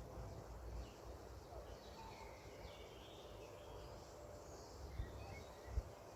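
Wild birds chirping with short, high calls over a low, steady outdoor rumble, with two brief low thumps near the end.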